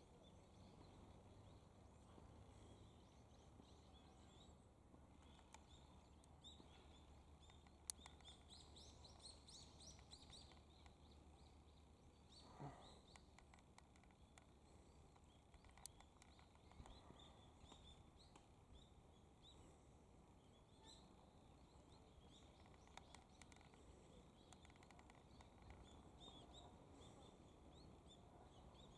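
Faint chirping of small birds over a low, steady outdoor background rumble, with a couple of sharp clicks.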